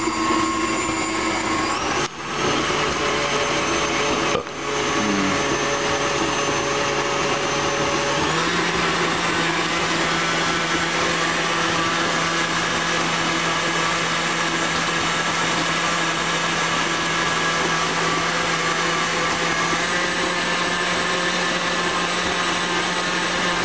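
KitchenAid stand mixer's motor running steadily while it beats instant chocolate pudding until it thickens. The sound dips briefly twice in the first five seconds, and its pitch steps up slightly about eight seconds in.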